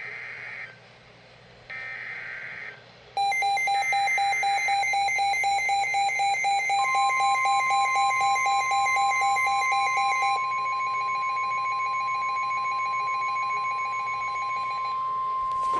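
NOAA Weather Radio emergency alert signalling. It starts with three short buzzy bursts of SAME data-header tones, then a weather-alert receiver's rapidly pulsing alarm beep. The steady 1050 Hz NWS warning tone joins a few seconds later and holds for about nine seconds. Together they announce an incoming warning.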